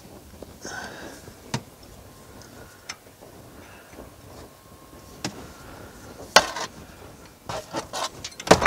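Irregular sharp metallic clicks and clinks of a wrench working the tractor's hydraulic fluid drain plug loose. The clicks are sparse at first and come thick and louder near the end.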